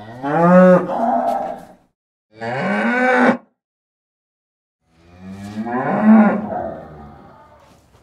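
Cows mooing: three separate moos, the middle one shorter, the last one trailing off.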